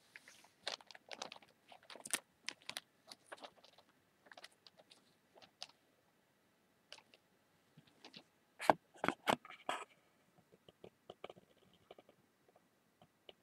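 Newspaper pages crinkling and rustling under fingertips in short, scattered crackles, with a louder cluster of crackles about nine seconds in.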